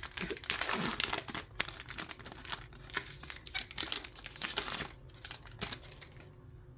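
Wrapper of a pack of trading cards being torn open and crinkled in the hands, a dense run of crackles that thins out near the end.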